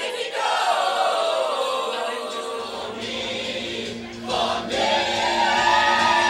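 A group of young voices singing together, holding notes, with a short break about four seconds in.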